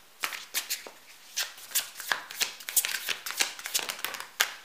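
A tarot deck being shuffled by hand: a quick, irregular run of sharp card snaps and flicks.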